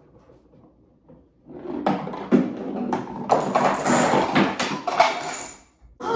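Clattering and knocking of a homemade wood-and-cardboard chain-reaction machine being run, parts rolling and falling. A quick, dense run of knocks starts about a second and a half in and stops just before the end.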